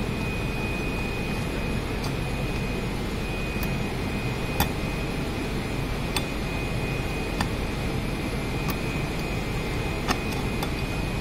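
Sharp metallic clicks, one every second or so, as a cycloidal reducer's disc is worked by hand onto its eccentric bearing and knocks against the housing's ring pins. Under them runs a steady workshop noise with a faint high whine.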